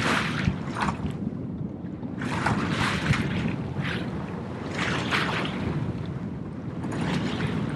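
Wind and water noise aboard a sailing yacht under way in a swell: a steady low rumble with rushing surges every two seconds or so, and wind buffeting the microphone.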